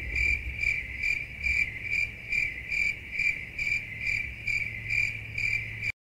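Crickets calling: a steady high trill that swells about twice a second, over a low steady hum.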